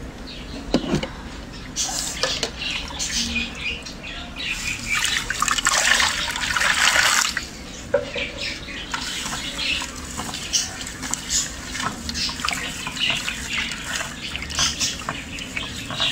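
Water poured into a glazed clay dish over coarse salt for a couple of seconds about five seconds in, then a hand swishing and rubbing in the water in short splashing strokes to dissolve the salt.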